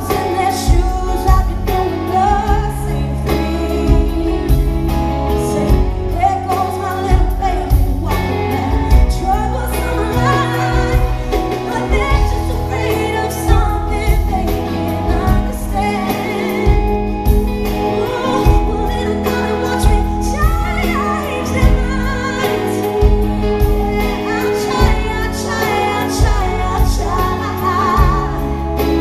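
Live band performing a pop ballad with a woman singing lead, the bass and drums heavy in the mix.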